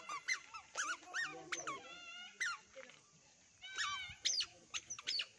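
A string of short, high-pitched squeaky animal calls, some sliding up or down in pitch, one held longer about two seconds in, with a pause around three seconds in.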